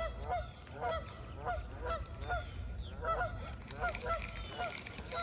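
Geese honking over and over in a steady run of short honks, about two to three a second.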